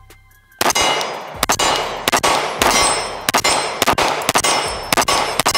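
Glock 45 Gen 5 9mm pistol fired in a steady string of about a dozen shots, two to three a second, starting under a second in. Each shot is followed by a ringing clang of the round hitting a steel target.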